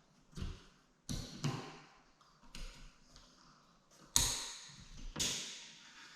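A series of irregular knocks and taps, about six in all, with the loudest about four seconds in.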